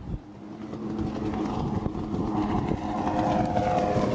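Sea-Doo 3D jet ski running at speed across the water, its engine drone growing steadily louder as it approaches.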